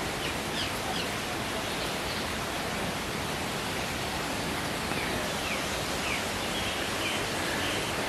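Steady rush of running water, with a bird giving a few short falling chirps about half a second in and again around five to six seconds in.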